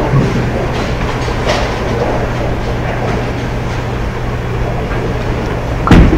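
Bowling alley background: a steady rumble of balls rolling on the lanes over a low hum. Near the end comes a loud thud as a bowling ball is released and lands on the wooden lane.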